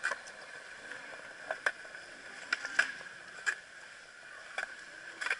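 Skateboard on stone paving: a series of sharp clacks every second or so over a steady hiss.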